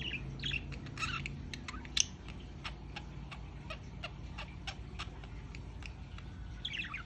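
Female budgie making soft practice sounds: a run of quick, sharp clicks in the middle, with a few short chirps near the start and a quick falling chirp near the end.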